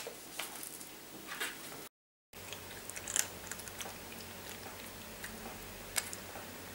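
A cat chewing food from a dish: scattered small crunching clicks, with a sharper one about six seconds in.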